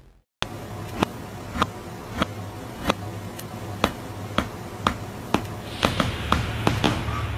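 Sharp percussive taps in a steady beat about two a second over a low steady hum, a little faster near the end: the opening beat of a music cover made from animal sounds.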